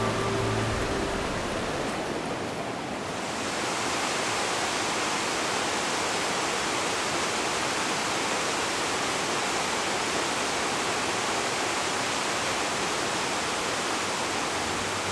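Rushing water of a mountain stream and waterfall, a steady even hiss. Music tones fade out about a second in. About three and a half seconds in, the water becomes fuller and brighter, the steady rush of the waterfall.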